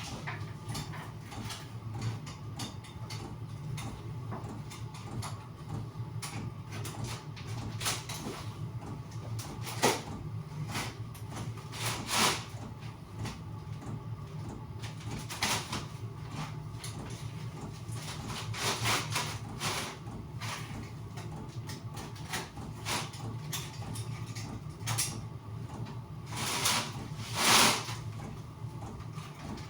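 Irregular knocks, clicks and several longer scrapes from hands-on building work, over a steady low hum.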